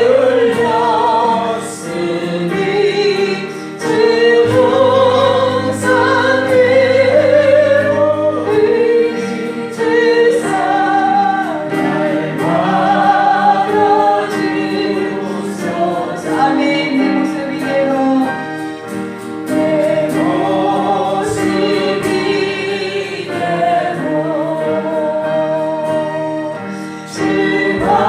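Congregation singing a Korean gospel hymn together as a choir, with steady instrumental accompaniment underneath.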